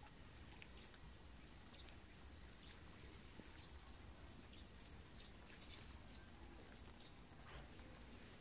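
Near silence: faint outdoor background hiss with a few scattered small clicks and ticks.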